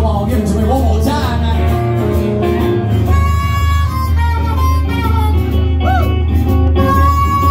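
Live blues: a harmonica solo played into a hand-cupped microphone over acoustic and electric guitar accompaniment. For the first three seconds the harmonica plays bending runs, then it holds long notes, with a quick bent note about six seconds in.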